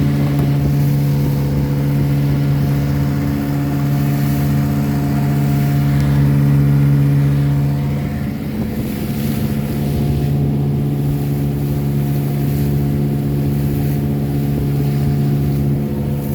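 1957 West Bend-built Elgin 7.5 hp two-cylinder outboard motor running steadily, with a slight shift in its pitch and a dip in level about halfway through.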